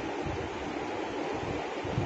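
Steady rushing background hiss with faint low rumbling, no speech or music.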